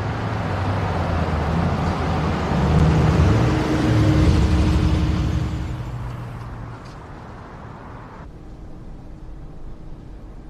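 A car going by: engine rumble and road noise swell for a few seconds, then fade away.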